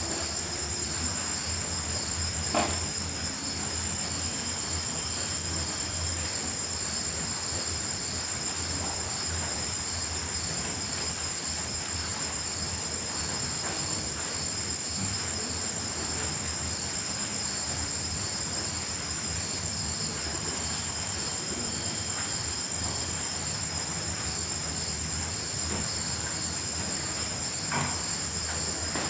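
Crickets chirping in a steady chorus: a continuous high-pitched trill with a faster pulsing chirp just below it. A brief click about two and a half seconds in and another near the end.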